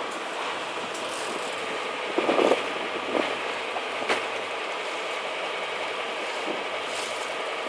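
Fishing boat's engine running steadily under the rush of the sea, with a few short knocks about two to four seconds in.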